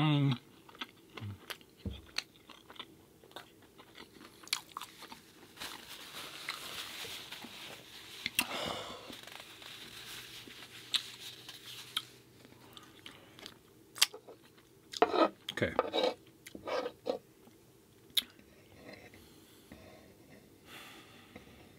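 A person chewing and biting food close to the microphone, with many short, sharp mouth clicks. The sounds get louder for a couple of seconds about fifteen seconds in.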